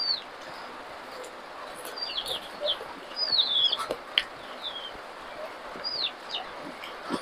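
Birds chirping: short, high calls that slide downward, some in quick runs, over a steady outdoor hiss. A few sharp clicks are mixed in, about four seconds in and near the end.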